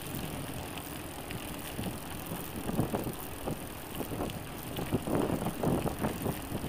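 Loaded touring bicycle riding on a rough road: steady tyre and wind noise on the microphone, with irregular knocks and rattles from the bike and its panniers that come more often from about halfway through.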